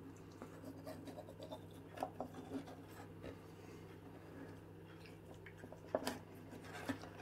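Knife blade scraping around the rim of an opened Fray Bentos pie tin, working the pastry lid loose from the metal. Faint scratchy rubbing with a few light clicks, the sharpest about six seconds in, over a low steady hum.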